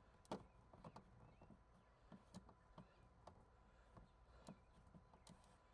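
Near silence: quiet room tone with a handful of faint, scattered clicks and taps.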